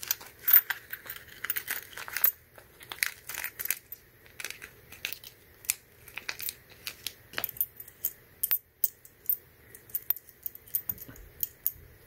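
Crinkling of a small clear plastic zip bag being opened and handled, with light clicks as the metal soldering-iron tips inside knock together and are tipped out into a hand. The crinkling is densest in the first couple of seconds, then thins to scattered clicks.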